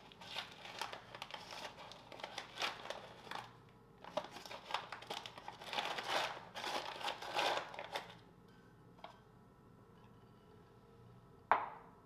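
Brown sugar being poured into a glass bowl on a kitchen scale, with rustling and crinkling that comes in two spells over the first eight seconds. A single sharp knock with a short ring sounds near the end.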